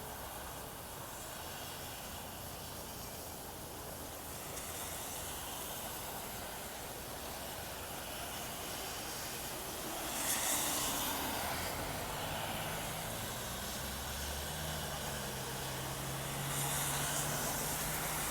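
Steady hiss of rain falling. It swells about ten seconds in and again near the end, and a faint low hum comes in during the second half.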